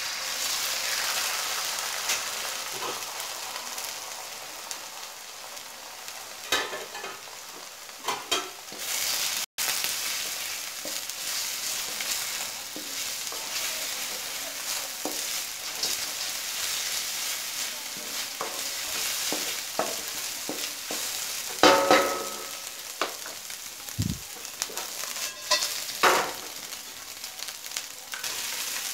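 Egg sizzling in hot oil in a nonstick wok, loudest just after it goes in, while a wooden spatula scrambles and stirs it, scraping and knocking against the pan now and then, sharply twice in the second half.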